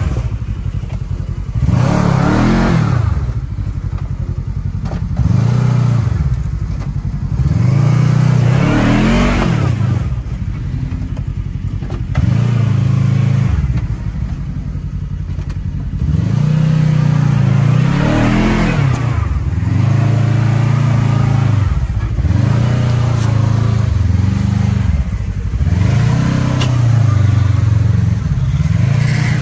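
Kawasaki KRX side-by-side engine being revved up and dropping back over and over, one rev every two to three seconds. This is the throttle being worked while crawling over rough rock.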